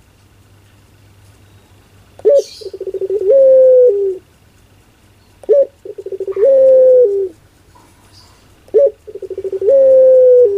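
Pale ring-necked (Barbary) dove, the 'puter pelung', cooing three times, about every three seconds, as it bows. Each call is a short sharp note, then a quick rolling run-in, then a long held coo that drops in pitch at the end.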